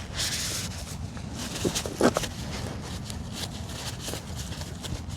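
A rag rubbing over a hydraulic hose fitting, wiping off leaked oil, with a hissing rub at the start. Two short knocks come about two seconds in, the second louder, as the fitting and hose are handled.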